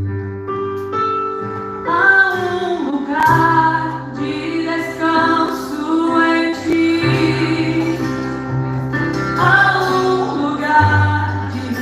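Church worship band playing a slow worship song, with sustained keyboard and bass notes. A woman's lead voice comes in singing about two seconds in.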